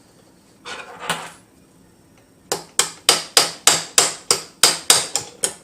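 Small hammer tapping an anti-walk pin through an AR-15 lower receiver to push out the old hammer pin: a brief handling noise about a second in, then quick, even, sharp taps about three a second from about halfway on.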